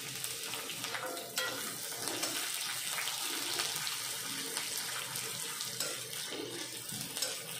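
Sliced onions sizzling in hot oil in a metal kadai, a steady hiss, with a metal spatula stirring and scraping against the pan and a few sharp clicks, the clearest about a second and a half in.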